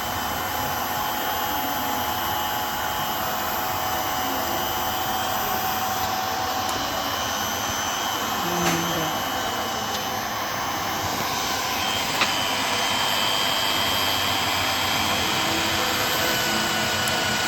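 Small 3-axis CNC milling machine running: the milling tool's motor spins with a steady whine and hiss while the Z-axis feeds the cutter down into the workpiece. Two sharp clicks sound around the middle.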